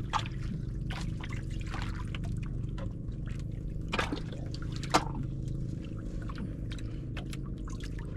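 Water splashing and dripping in small irregular spatters over a steady low hum, with a sharper splash about five seconds in.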